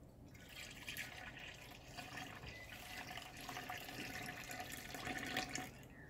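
Citrus juice and zest poured from a jug through a stainless-steel mesh hop filter into a plastic fermenter of wort: a steady trickling splash that builds a little, then drops away sharply just before the end.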